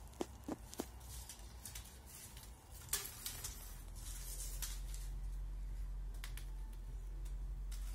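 Thin dry cane sticks clicking and tapping against each other and on a concrete floor as they are handled, with a sharper click about three seconds in. A low steady rumble sets in about three and a half seconds in.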